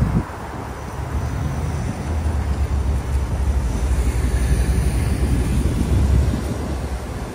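City street traffic noise: passing vehicles with a heavy low rumble, building up through the middle and easing near the end.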